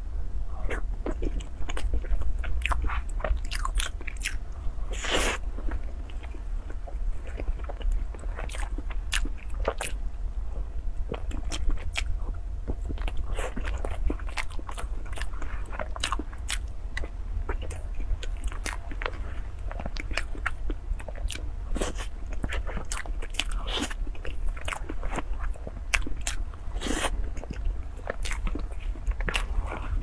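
Close-miked chewing and biting of soft chocolate cake taken off a spoon, with frequent short, sharp wet mouth clicks, over a steady low hum.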